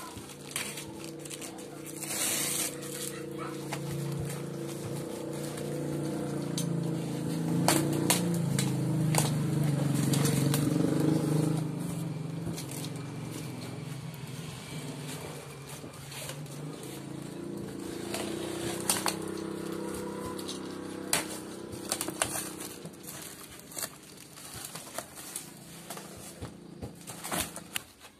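Cardboard and packing tape being ripped and pulled apart by hand to open a shipping box: scattered crackling tears and rustles. Under them runs a low, several-toned drone from another source, loudest in the first half and dying away after about twenty seconds.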